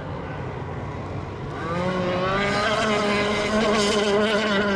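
Small RC racing boat engine running. It comes in about a second and a half in and grows louder, with a slightly wavering pitch.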